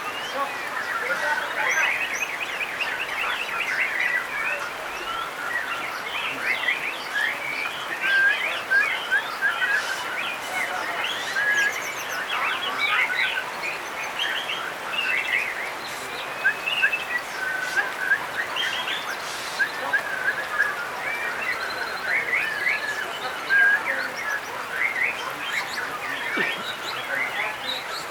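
White-rumped shamas (murai batu) singing, several at once, in a dense run of overlapping whistles, trills and chirps.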